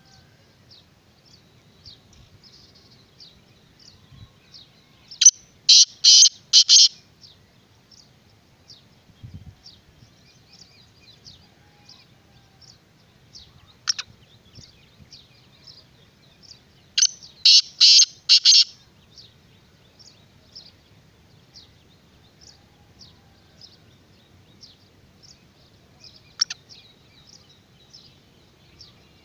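Black francolin calling twice, each call a harsh, grating run of about five quick notes lasting around a second and a half, about 5 s in and again about 17 s in. Faint high chirping of small birds runs underneath throughout.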